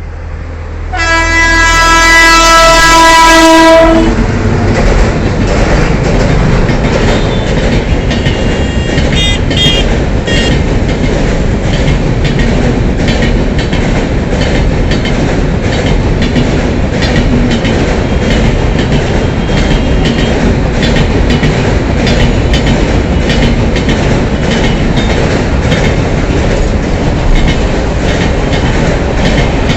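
A WAP-7 electric locomotive's horn sounds once, a single steady blast of about three seconds. The Rajdhani express then passes at speed, its LHB coaches' wheels clattering rapidly over the rail joints.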